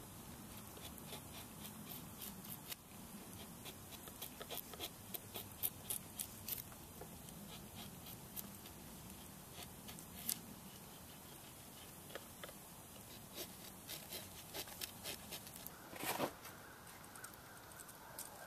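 Drawknife shaving a red oak bow stave: irregular short scraping strokes with crisp clicks as the blade bites into the wood. A louder, longer scrape or knock about sixteen seconds in.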